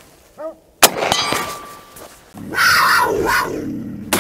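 A single rifle shot from a Marlin 336C lever-action in .30-30 Winchester, a sharp crack about a second in that rings away, followed by a loud harsh animal cry in the middle and another sharp crack at the very end.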